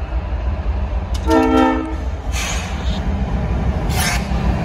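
Short blast of a CSX freight locomotive's horn, a chord of several tones lasting under a second, about a second in. It sounds over the low rumble of the approaching diesel locomotives.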